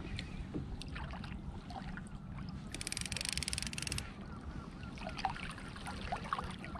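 Fishing reel being wound in short spells, a fast fine clicking for about a second at a time, as a hooked ray is drawn up to a kayak. A low rumble of wind and water runs underneath.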